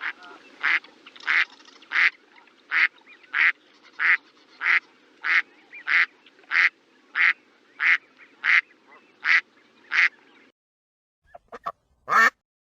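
A duck quacking over and over at an even pace, about three quacks every two seconds, some fifteen in a row. After a short pause there are a few faint clicks and then one more loud call near the end.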